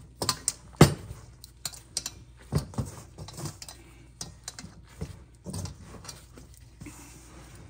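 Hands in rubber gloves mixing dough in a stainless steel bowl: irregular clicks and knocks against the metal bowl, the loudest about a second in.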